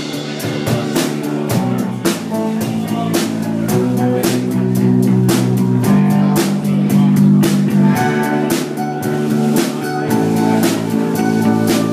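Live band playing: a drum kit keeping a steady beat under electric bass and acoustic guitar.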